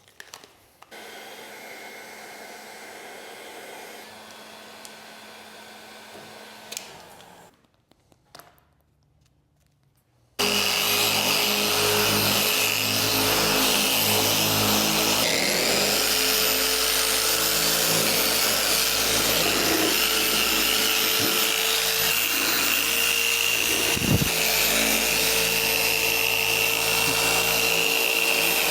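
A quieter steady machine sound for the first several seconds, then a few seconds of near quiet. About ten seconds in, a loud motor-driven machine starts abruptly and runs steadily.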